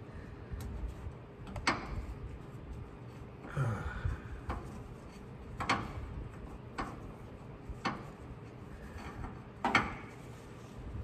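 Scattered sharp metallic clicks and knocks, about five over several seconds, from hand tools and a bolt being worked into the carrier bearing mount under a truck, with a short rustling noise about four seconds in.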